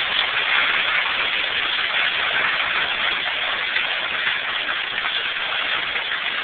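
Hail and rain coming down steadily in a severe thunderstorm, an even, dense noise without separate hits standing out.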